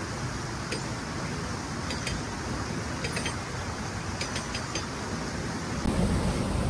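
Wind rumbling and buffeting on the microphone, with a few faint short clicks scattered through. About six seconds in the rumble gets louder.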